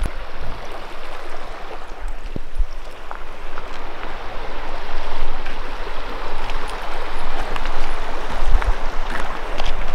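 Shallow creek running over stones and gravel, a steady rush of water.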